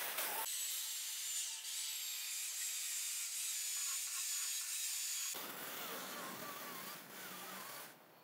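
Makita electric chainsaw cutting through a thick wooden slab, its motor whine wavering in pitch as the load changes. For a few seconds from about half a second in the sound goes thin and high, then turns fuller again, and it falls away just before the end.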